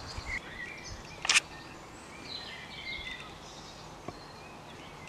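Woodland ambience: birds chirping intermittently over a steady background hiss, with one sharp knock about a second in.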